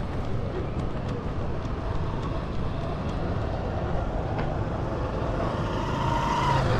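Busy street ambience with steady motor-vehicle traffic noise. A vehicle engine grows louder near the end.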